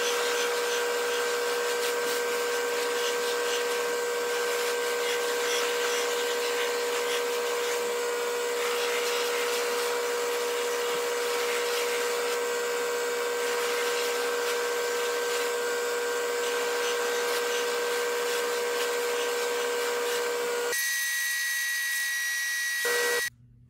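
Bench buffing machine running steadily, its wheel spinning while a guitar body is pressed against it to buff out the finish. The sound changes and cuts off abruptly near the end.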